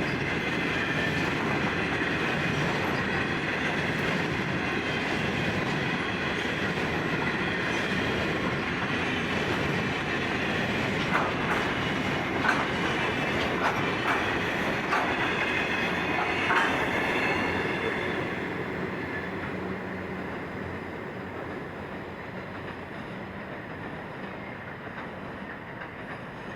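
Freight train's grain hopper wagons rolling past, with a faint high whine from the wheels and a cluster of sharp clicks about halfway through as the wheels cross rail joints. The rolling noise then fades away as the train moves off.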